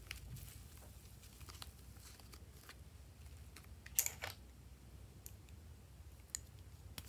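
Faint small clicks and crackles of hands handling pink slime and plastic tubes over a glass dish, with one louder, sharper click about four seconds in and a few more clicks near the end.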